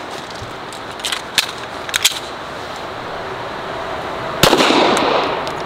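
A single semi-automatic pistol shot about four and a half seconds in, with a short ringing echo after it. A few fainter sharp cracks come earlier, about one to two seconds in.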